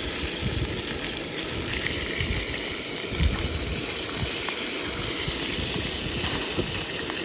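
Brook trout pieces frying in butter in a pan over a canister gas stove: a steady sizzle, with a few faint clicks as a fork turns the fish.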